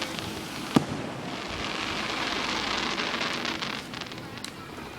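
Fireworks: one sharp bang about a second in, followed by a few seconds of dense crackling that fades away.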